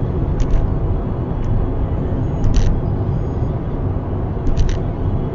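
Steady low road rumble of a car driving on an expressway, heard from inside the cabin through a dashcam microphone, with a few brief faint clicks or rattles about half a second, two and a half and four and a half seconds in.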